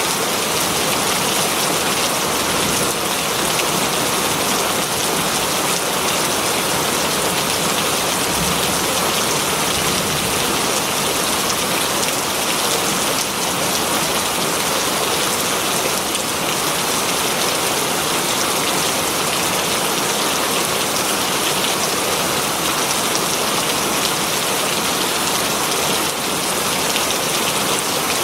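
Very heavy rain falling steadily on leaves, a dense unbroken hiss of many drops.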